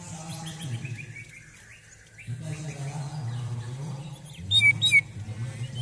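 Male greater green leafbird (cucak ijo) singing hard in an agitated, fired-up state. First comes a run of quick falling high notes, then two loud, sharp high calls near the end, which are the loudest part.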